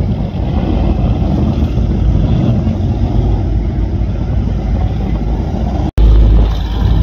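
Engines of offshore performance powerboats rumbling steadily as the boats run slowly through the channel. Near the end the sound cuts out for an instant and comes back louder and deeper as a boat passes close.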